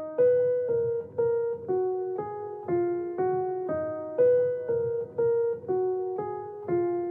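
Background music: a simple piano melody of single notes, about two a second, each note fading before the next.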